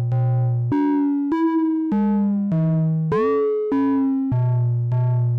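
Make Noise 0-Coast synthesizer playing a run of notes at changing pitches, about one every 0.6 s, its oscillator frequency-modulated by the cycling Slope section through an envelope-controlled VCA. Each note starts bright with many overtones at full FM index and tapers back toward a plain triangle-wave tone; one note glides in pitch just after the midpoint.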